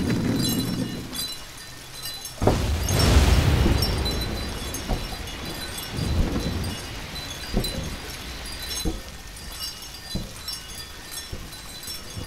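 Foley sound effects: a low rumble dies away, then a sharp crack about two and a half seconds in sets off a loud rushing swell that fades slowly, followed by scattered knocks and clicks.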